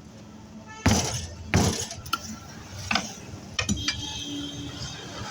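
Sharp metal knocks and clinks, four loud ones and a few lighter ones, from hand tools on a tractor's front wheel during tyre fitting, over a low steady hum.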